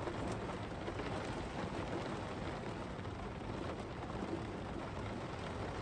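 Heavy rain pounding steadily on the roof of a van.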